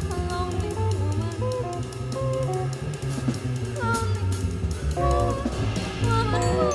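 Small jazz band playing an instrumental passage: an electric guitar melody over double bass and drum kit.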